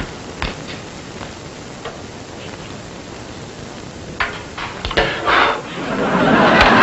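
Light clinks and knocks of a spoon against a metal cooking pot, clustering about four to five seconds in. Near the end a louder, steady wash of noise rises over them.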